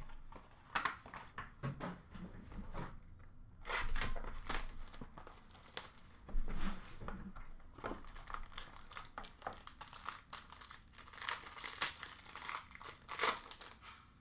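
A trading-card pack's foil wrapper is handled and torn open by hand, with the cardboard box handled along the way. Irregular crinkling and crackling runs throughout, loudest toward the end.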